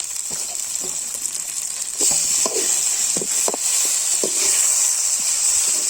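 Chopped tomatoes sizzling in hot oil with onions, green chillies and curry leaves. The sizzle gets louder about two seconds in, with a few short knocks of stirring scattered through it.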